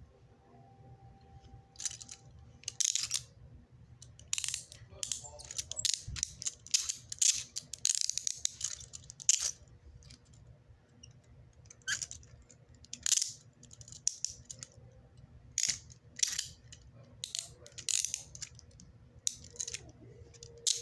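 Steel Smith & Wesson handcuffs being handled, with irregular metal clinks and the rattling click of the ratchet arms going through.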